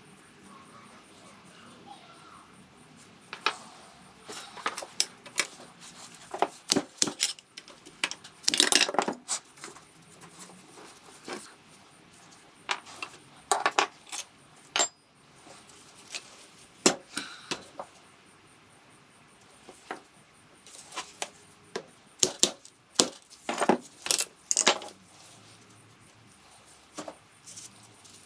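Irregular metallic clinks and clatter of hand tools and scooter engine parts being handled during engine disassembly, coming in clusters with quieter gaps between.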